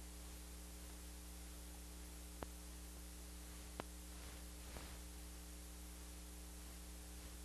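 Steady electrical hum under a film-like hiss, with two sharp clicks about two and a half and four seconds in: the noise floor of a silent archival film transfer, with no soundtrack of its own.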